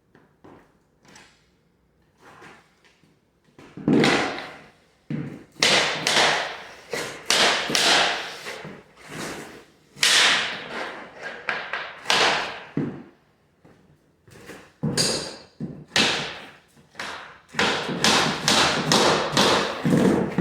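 Hammer striking a tapping block against the edge of a vinyl plank, knocking its long-side tongue into the groove: a few light taps, then from about four seconds in a long run of sharp knocks, roughly one a second.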